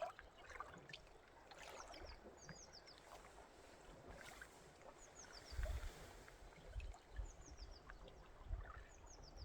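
Faint outdoor water ambience, a gentle trickling and lapping with small clicks, with a bird giving short high falling chirps in groups of two or three, repeated every second or two. A few low thumps come about halfway through and near the end.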